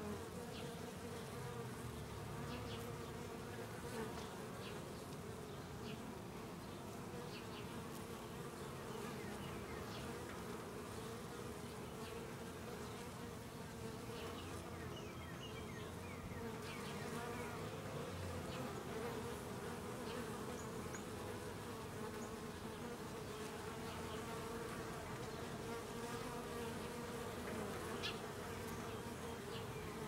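Honeybees buzzing at the hive entrance: a steady drone of many wingbeats, its pitch wavering slightly as bees fly in and out close by.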